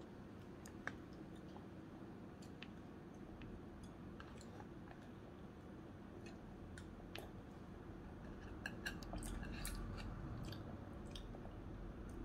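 A child chewing quietly, with scattered small clicks of plastic chopsticks against a plastic lunch box, the clicks coming more often near the end.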